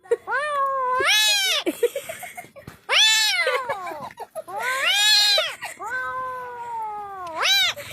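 A cat meowing repeatedly: about five long, drawn-out meows in a row, each rising and then falling in pitch, the one near the end sliding steadily down before a short rising cry.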